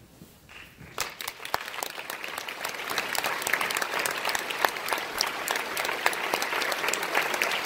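Audience applause: a hall full of people clapping, starting about a second in and quickly building to loud, dense applause.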